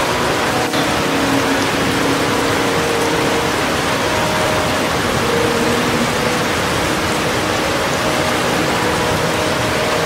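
Waterfall pouring into a rocky plunge pool: a steady, even rush of falling water.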